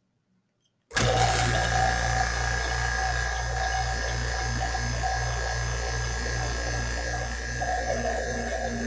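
Electric vacuum pump switched on about a second in, then running steadily with a low hum and a throb that pulses about three times a second, as it pumps the air out of a glass bell-jar vacuum chamber.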